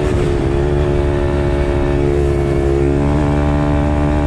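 Apollo RFZ pit bike's swapped-in 150cc single-cylinder four-stroke engine running under way at steady revs, with a small change in pitch about three seconds in.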